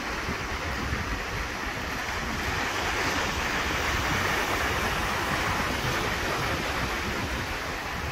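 Ocean surf breaking and washing up a sandy beach in a steady rush that swells louder around the middle.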